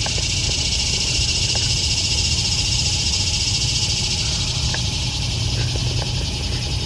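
Steady, high-pitched summer insect chorus with a fine rapid pulsing, over a low rumble.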